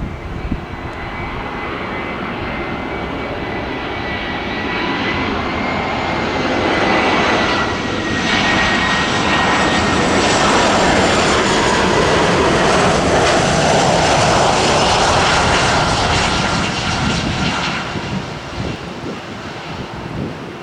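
Jet airliner's engines passing: a noisy rumble with a high whine that grows louder, peaks in the middle and fades near the end, the whine sinking slightly in pitch as it goes by.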